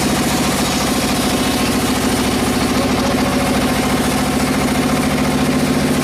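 Sawmill engine running steadily with an even, fast pulse and no change in speed.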